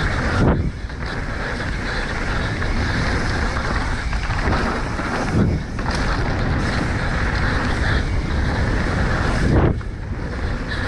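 Wind rushing over the microphone, with the rolling rumble and rattle of a mountain bike riding fast downhill. The noise is steady and loud, with a few brief dips.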